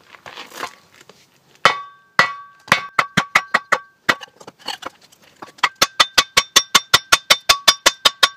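Hammer blows on a wooden block held on the crankshaft end of a Victa Powertorque mower engine, driving the crankshaft out of the flywheel. A few spaced knocks come first, then quick even blows about four a second from about halfway, each with a short metallic ring.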